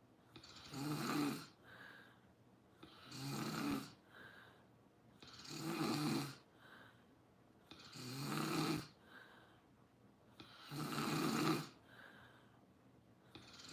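A sleeper snoring in a steady rhythm: five loud snores, about one every two and a half seconds, each followed by a shorter, fainter sound.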